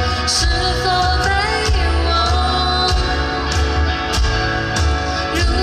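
Rock band playing live, with drums, bass and a singing voice.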